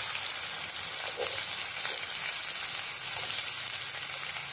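Sliced onions sizzling as they fry in hot oil in a metal kadai, a steady crackling hiss, with a metal spatula stirring them now and then.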